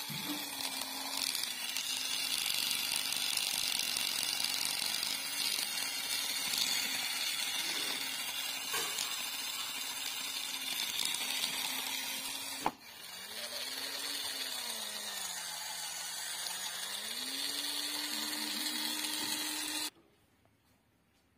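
Small electric toy motor running a homemade model tractor's plastic gear train with a steady whine, in a gearbox the uploader says has gone bad. About two-thirds of the way through there is a sharp click and the sound briefly cuts out. The pitch then sags and climbs back twice before holding steady, and the sound stops shortly before the end.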